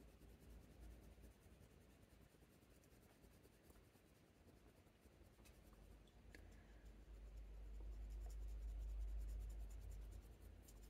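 Faint scratching of a coloured pencil shading on hot-press watercolour paper, pressed fairly firmly, with a few light ticks. A low rumble swells up between about seven and ten seconds in.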